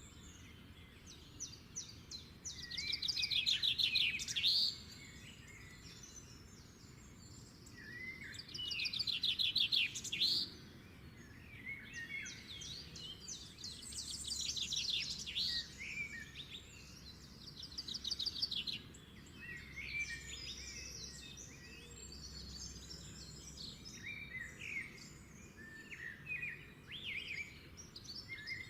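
Songbirds singing and chirping, with loud, rapid trilling phrases about three, nine and fifteen seconds in and shorter chirps and twitters in between.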